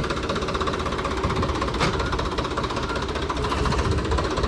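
Tractor's diesel engine running steadily, a close, evenly pulsing knock. A short click about two seconds in.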